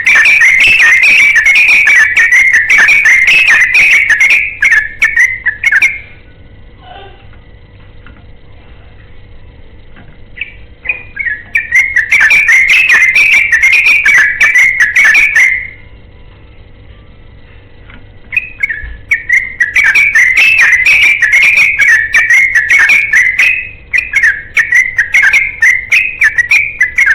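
Yellow-vented bulbul (trucukan) singing its long, rapid, chattering 'ropel' song, loud and bright. It comes in three bouts of several seconds each, with pauses of a few seconds between them.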